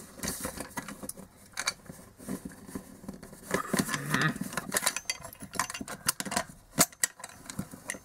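Handling noise from a plastic PA horn loudspeaker (KOMP IM-72) being turned and tilted in the hands, with irregular clicks and rattles as loose screws shift inside its dome.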